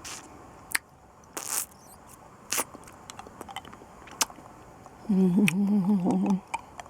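Mouth sounds of someone eating a hard lollipop: scattered wet clicks and smacks of the candy against lips and teeth, then a hummed 'mmm' lasting about a second and a half near the end.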